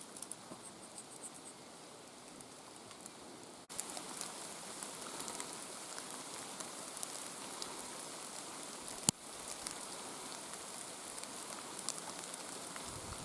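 Rain falling steadily on the surrounding foliage, a fine hiss full of drop ticks. It becomes suddenly louder about four seconds in, and there is a single sharp click about nine seconds in.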